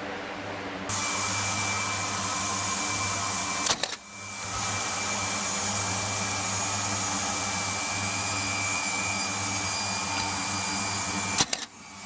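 A steady machine-like hum with a thin high whine, broken by a couple of sharp bangs about four seconds in and again near the end.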